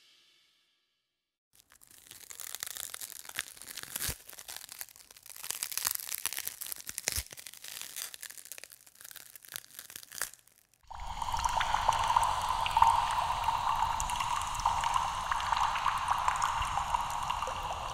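Demo sound-effect samples: after a short silence, about eight seconds of irregular crackling and crunching, then a steady hissing rush that runs for about seven seconds.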